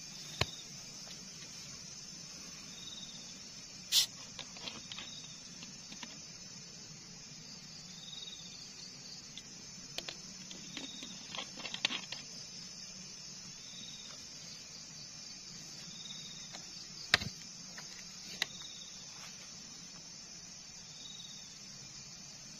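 Insects, crickets or cicadas, droning steadily in a high band, with a short high chirp repeating every two to three seconds. A few sharp clicks break in, the loudest about four seconds in and again near seventeen seconds.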